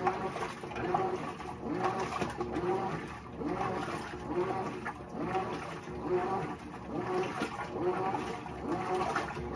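Hotpoint top-load washer agitating a load of bathrobes: the agitator drive sends out a whine that rises and falls with each stroke in a steady rhythm, over water sloshing in the tub.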